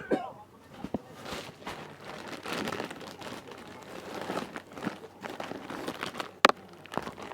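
Plastic packaging bags crinkling and rustling as they are handled, in irregular bursts, with one sharp click about six and a half seconds in.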